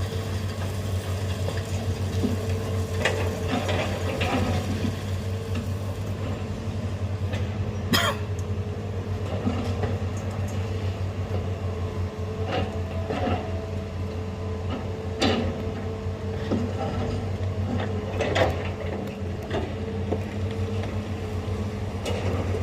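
Heavy diesel machinery running steadily with a low hum, with scattered sharp knocks and clacks, the clearest about 8, 15 and 18 seconds in.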